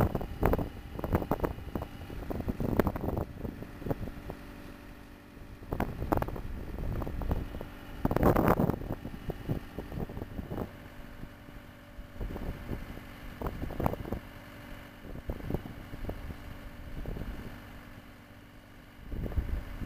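Hybrid sonic/rotary drilling rig's engine running steadily, with irregular gusts of wind buffeting the microphone, the strongest about eight seconds in.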